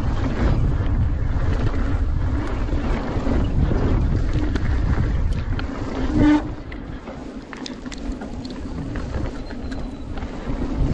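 Wind buffeting the camera microphone over the rolling noise and rattle of a mountain bike descending a dirt-and-gravel trail. About six seconds in there is a brief, loud pitched sound. After it the wind noise drops and scattered light clicks and rattles remain.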